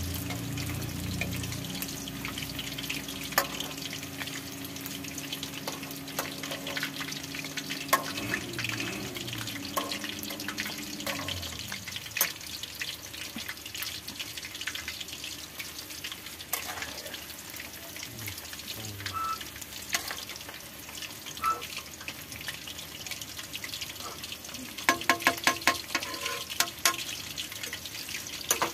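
Battered meat kebab pieces deep-frying in hot oil in a steel wok, bubbling and crackling steadily, with a quick run of sharp clicks near the end.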